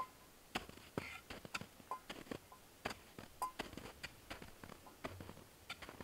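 Faint, irregular clicks and taps, about two a second.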